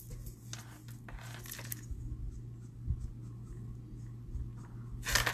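Marker tip rubbing over cardstock as the lightest shade is coloured into the hair, with soft scratchy strokes and a louder scrape about five seconds in. A low steady hum runs underneath.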